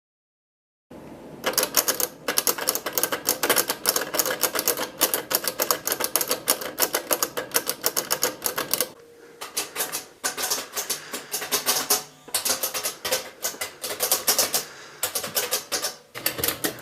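Typewriter keys being struck rapidly in long runs of clicks, broken by a few brief pauses. The typing starts after about a second of silence.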